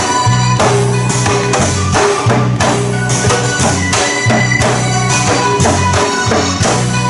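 Loud upbeat music with a steady bass beat and hand percussion.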